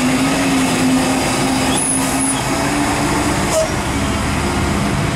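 Diesel engine of a heavily loaded tandem-axle cargo truck straining up a steep grade, a steady low drone at a constant pitch as it pulls slowly in a low gear.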